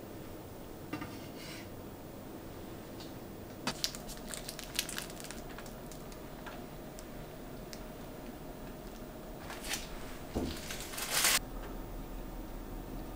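Light kitchen handling sounds: a few soft clicks and taps of knife, glass and cake against a wooden board, in two small clusters, the louder one near the end.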